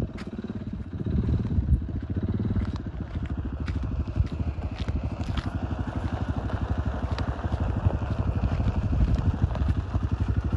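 Quad ATV engine running at low speed, a steady fast chugging, with scattered sharp clicks from gravel under the tyres.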